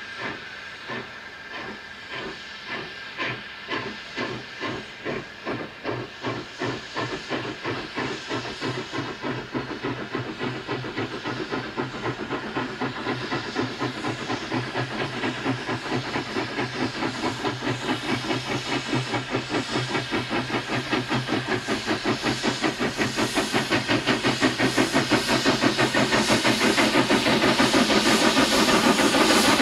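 Double-headed steam tank locomotives working hard with a train: a steady rhythm of chuffing exhaust beats that come faster and grow steadily louder as the train draws near.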